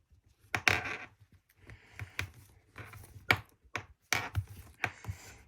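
Handling of a small toy's packaging during unboxing: scattered taps, clicks and scratchy rustles of plastic and cardboard, irregular and sometimes bunched together.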